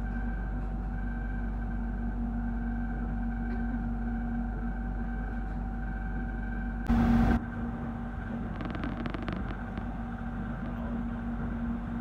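Cabin of an electric airport rail link train running at speed: a steady rumble with a steady hum of a few held tones. About seven seconds in, a brief loud burst of noise lasts about half a second, and faint quick clicks follow.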